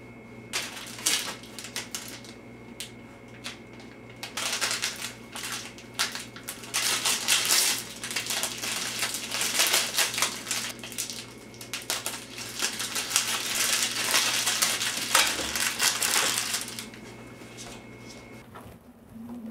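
Clear plastic film being handled, crinkling and crackling in dense, irregular bursts over a steady low hum.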